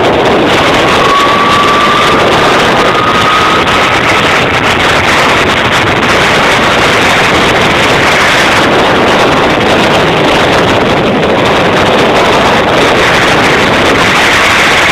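Loud, steady rush of wind on the microphone from riding a zipline at speed, mixed with the rolling hum of the trolley on the cable; a faint whine rises slightly in pitch from about a second in.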